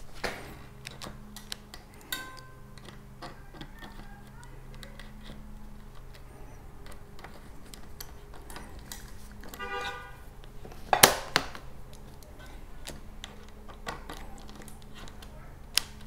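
Small metal clicks and taps of a hex key working the cable anchor bolt on a road bike's rim brake caliper while the new brake cable is clamped, with one louder sharp click about eleven seconds in.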